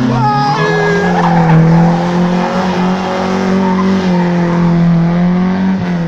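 Rally car engine held at high revs as the car slides through a corner, its pitch rising at the start, holding almost steady and dropping near the end. The tyres squeal briefly in about the first second.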